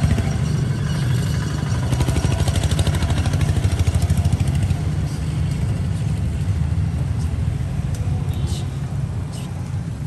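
A small engine running with a fast, even low pulse, louder in the first half and easing off later. A few light clinks come near the end.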